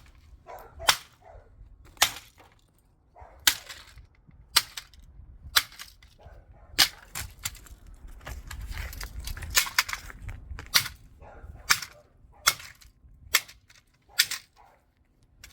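Hammer blows striking a plastic digital alarm clock, about a dozen sharp cracks roughly once a second. The clock's casing is splitting apart and its circuit board breaking.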